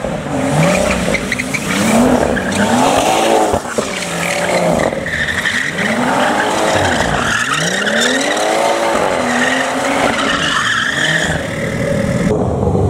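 A car drifting in circles, its engine revving up and falling again and again while its tyres squeal and skid, the squeal strongest from about five seconds in until near the end.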